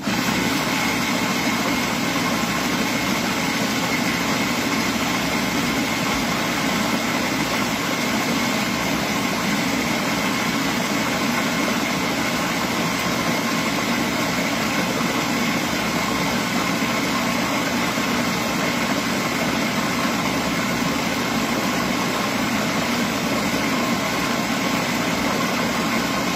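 Electric food processor motor running steadily, blending a soaked-cashew and coconut cheesecake filling until smooth, with a steady high whine over a low hum. It switches on suddenly at the start and cuts off suddenly at the end.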